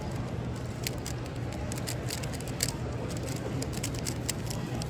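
A speedcube, a Moyu Weilong GTS VII, being turned one-handed in a fast solve, making quick, irregular plastic clicks several times a second over the steady hum of a big hall.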